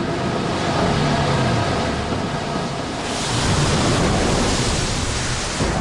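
Bulk iron ore pouring out of a crane's grab bucket: a steady rushing noise that turns brighter and a little louder about three seconds in.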